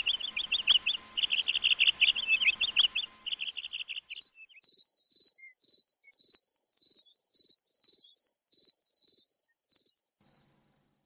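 Insects chirping: rapid high chirps for about the first four seconds, then a steadier high trill pulsing about twice a second that fades out near the end.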